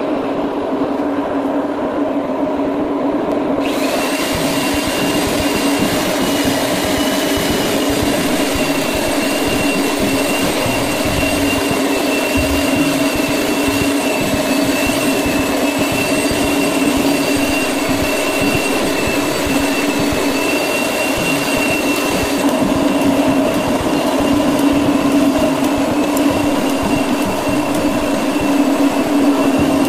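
Electric floor grinding machine running steadily with diamond pads on wet marble: a constant machine hum, with a high steady whine that comes in about four seconds in.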